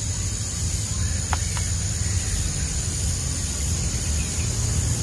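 Rural outdoor ambience: a steady, high-pitched insect drone over a low, steady rumble, with two short faint clicks about a second and a half in.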